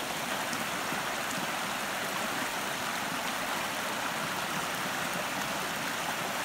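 Shallow rocky stream running over and between boulders: a steady rush of water.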